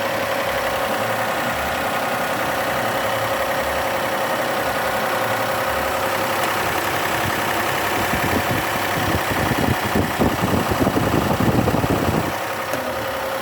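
Car engine idling steadily, its hydraulic lifters no longer knocking; for a few seconds near the end a louder, uneven low rumble rises over the idle, then settles again.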